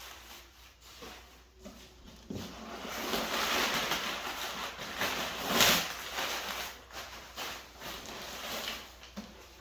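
Packing material rustling and scraping as a shipping box is opened and unpacked, with a louder scrape a little past halfway.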